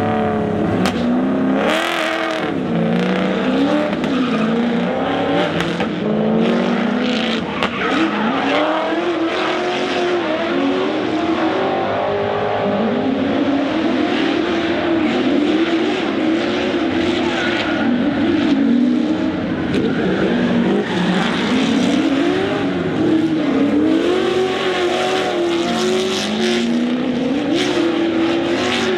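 V8 engine of a VZ Commodore drift car revving hard and easing off again and again as it drifts, the pitch rising and falling every second or two, with tyres skidding.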